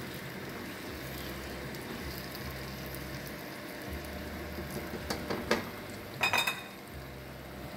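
Diced potatoes sizzling steadily as they brown in plenty of hot oil in a stainless steel pan, stirred with a slotted spatula. A few knocks and clinks of the spatula against the pan come about five to six and a half seconds in.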